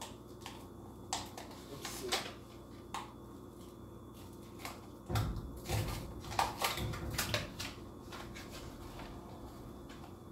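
Cardboard and plastic packaging of a die-cast toy car being handled and torn open by hand: scattered clicks and crackles, busiest about five to eight seconds in.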